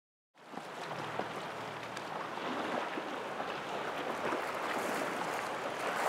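Open-sea ambience of water and wind noise, fading in from silence just after the start and then holding steady, with a low steady hum underneath.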